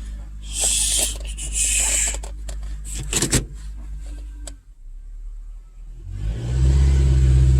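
Honda Accord engine running with handling clicks and a knock about three seconds in; about six seconds in it swells and holds louder and steady. It is being tested for a cylinder 4 misfire that shows only under load, and it runs with no misfire.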